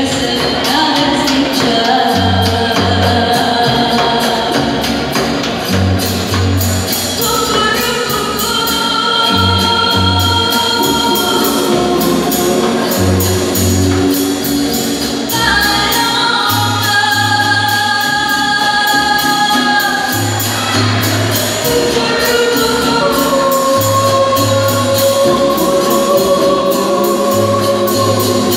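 Live cumbia band playing through a PA, with a repeating bass figure, held chords and group singing.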